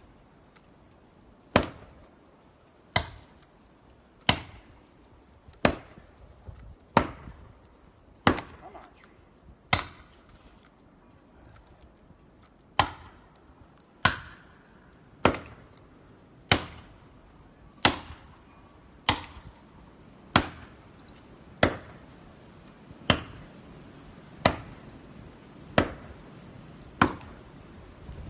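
An axe chopping into a tree trunk, single sharp strokes in a steady rhythm of about one every 1.3 seconds, with one short pause near the middle.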